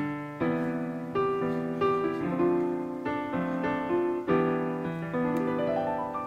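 Background piano music: notes and chords struck at an easy, even pace, each ringing and fading before the next.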